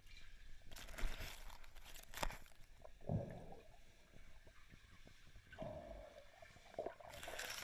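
Water sloshing and bubbling around an underwater camera as a sea lion swims close past it, with short splashy bursts about a second in and near the end and a few low, muffled knocks between.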